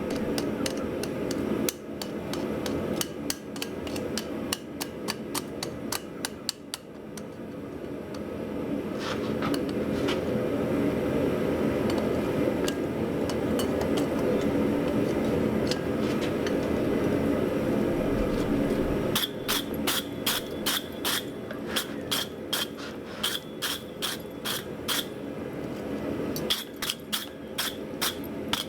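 Blacksmith's hammer striking hot steel on an anvil, scattered blows at first, then a steady rushing noise of the forge through the middle. Near the end, quick evenly spaced blows ring clearly, about two to three a second; a clear ring like this is the sign of a solid forge weld in the hammer head.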